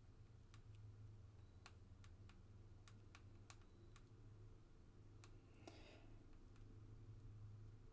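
Faint, irregular light clicks and taps, about a dozen spread over several seconds, with a brief rustle just before six seconds in, over a steady low hum.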